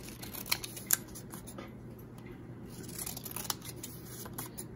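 Scissors snipping through paper in a series of short cuts, the two loudest snips about half a second and a second in.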